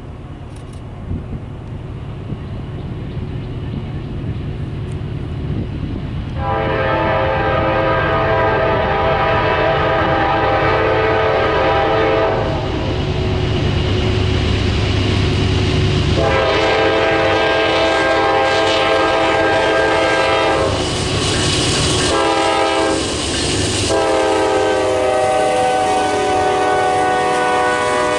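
Locomotive air horn sounding a chord of several notes in two long blasts, a short one and a final long one that is still going at the end. This is the long-long-short-long grade-crossing signal, sounded over the rumble of the train as it draws near.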